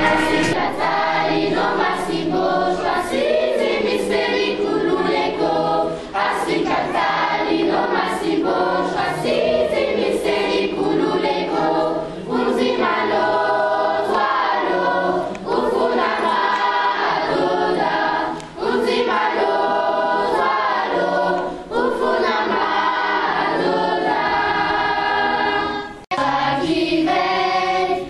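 Children's gospel choir singing together in phrases, with short breaks between lines and one very brief drop-out near the end.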